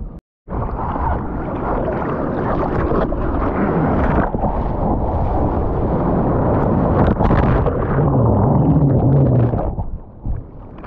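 Small ocean waves breaking, with whitewater rushing and churning right around a camera at the water's surface. It cuts out for a moment just after the start and settles to a softer wash near the end.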